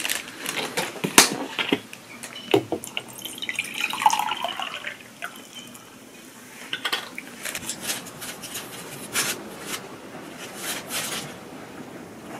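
Water poured from a plastic bottle into a glass mug, with sharp clicks and taps of glass and plastic around the pour.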